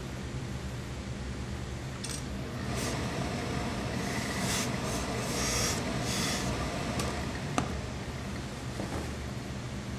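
Tailor's steam iron pressing a suit jacket's hem to bond it with double-sided fusible tape, steam hissing in uneven bursts from about two seconds in until about seven seconds. A single sharp knock follows, over a steady low hum.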